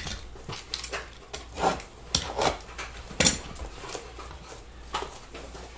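Small shrink-wrapped cardboard boxes being picked up, handled and set down on a table: scattered light knocks and clicks.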